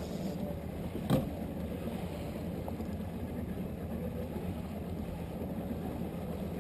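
Outboard motor running steadily at trolling speed, a continuous low drone. A single sharp knock about a second in.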